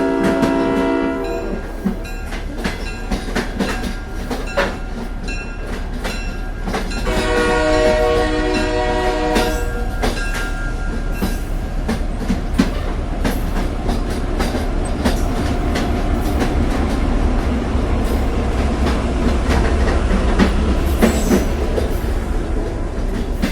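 Moving train: steady rumble of the cars with wheels clacking and clicking over the rails. A horn sounds a chord at the start, stopping about a second and a half in, and blows again for about three seconds from about seven seconds in.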